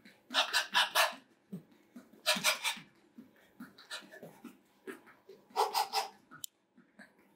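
A person breathing out sharply in quick hissing bursts of about four, three times over, the short forceful breaths a boxer makes with each punch during a hard cardio drill.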